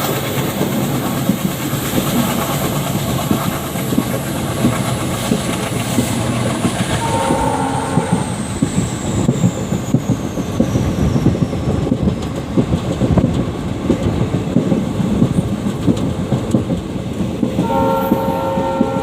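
WDG3A diesel locomotive of ALCO design, under way and heard from a coach just behind it: the engine chugging over the clatter of wheels on the rails. Its horn sounds a short blast about seven seconds in and another starting near the end.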